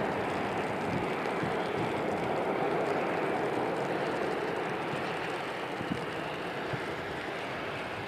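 Airbus A350-900 XWB's Rolls-Royce Trent XWB jet engines at go-around thrust as the airliner climbs away: a steady jet rush that slowly fades.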